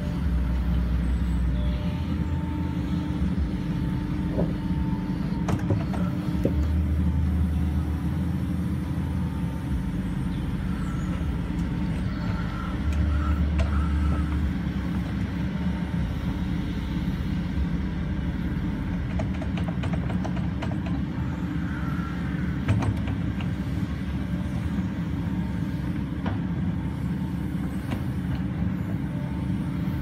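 Kobelco SK140SR excavator running steadily while levelling soil with its tiltrotator bucket, its diesel engine and hydraulics swelling louder under load three times in the first half, with a few short knocks scattered through.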